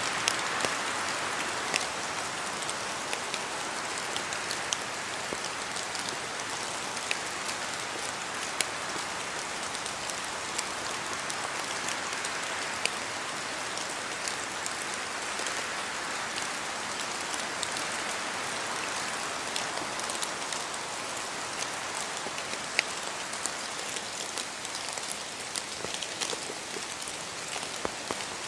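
Steady rain in a forest, a continuous hiss with many sharp, scattered drops falling from the trees. The hiss swells and eases slowly with the wind.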